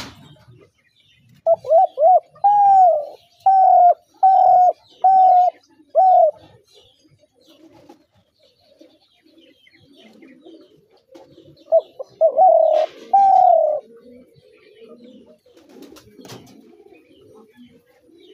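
Spotted dove cooing: a run of about seven short coos in the first six seconds, then a second bout of three or four a little past the middle, with faint small-bird chirps behind.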